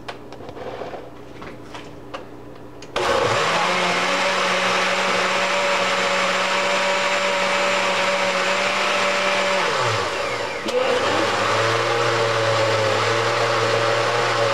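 Countertop blender, quiet at first with a few faint knocks, switches on about three seconds in and runs loudly, grinding banana peels and eggshells in water. About ten seconds in the motor's pitch drops, then it carries on at a different speed.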